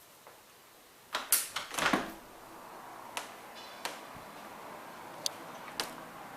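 A cluster of sharp clicks and knocks about a second in, then a steady hiss with a few more single sharp clicks.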